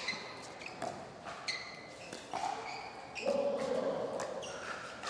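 Pickleball rally: paddles striking the plastic ball in a string of sharp pops, with short shoe squeaks on the court. Crowd voices swell about three seconds in.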